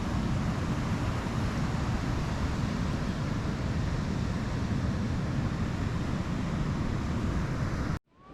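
Steady rushing noise of wind buffeting the microphone, with ocean surf beneath it; it cuts off suddenly near the end.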